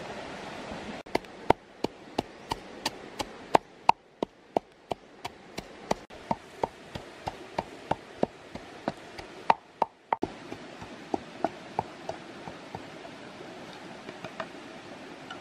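Knife chopping food on wood: a steady run of sharp knocks, about three a second, that fades to a few lighter taps near the end.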